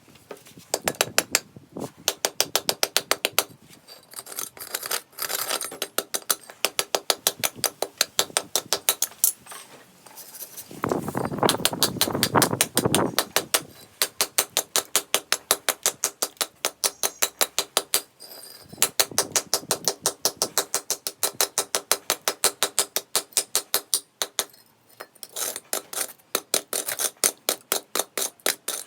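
Metal struck rapidly with a hammer, about six ringing blows a second in long runs with short pauses; about eleven seconds in, a couple of seconds of denser, harsher rasping noise replace the blows.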